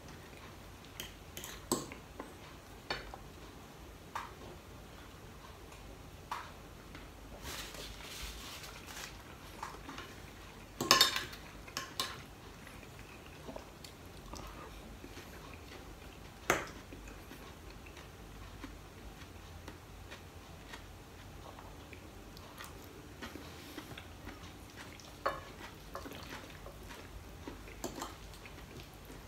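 Metal fork and knife clinking and scraping against a dinner plate while food is cut and eaten, with some chewing. The clinks come scattered and irregular; the loudest is a short cluster about eleven seconds in, and another sharp one comes a few seconds later.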